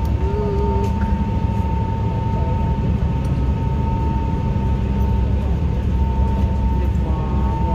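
Ferry engine running steadily, a constant low drone with a steady high whine over it, heard from inside the passenger cabin.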